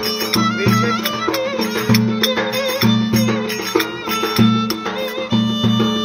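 Turkish folk music: a bowed fiddle plays a wavering melody over a beat on a large double-headed davul drum.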